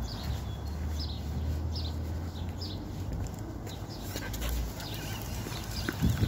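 Labrador whimpering: short high squeaks repeating about once a second over a low rumble, with a couple of knocks near the end.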